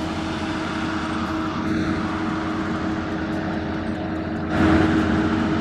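Two-stroke chainsaw running steadily at high speed, getting louder about four and a half seconds in.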